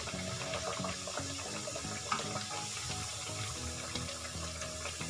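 Puris deep-frying in hot oil in a steel kadhai: a steady crackling sizzle, with one light knock about two seconds in.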